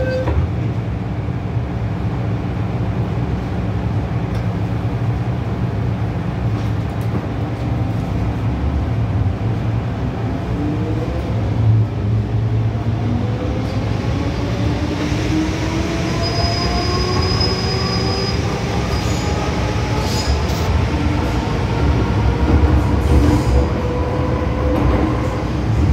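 Cabin of an MTR M-Train (Metro Cammell) subway car under way: a steady rumble of wheels on track, and from about ten seconds in a whine from the traction equipment rising steadily in pitch as the train picks up speed.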